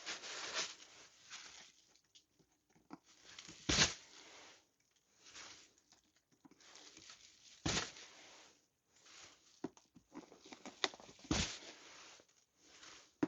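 Old staples being pried out of a KTM 690 Enduro seat with a flathead screwdriver and a pulling tool: sporadic metal scrapes and small clicks, and the seat cover crinkling. A few louder scraping strokes come roughly every four seconds.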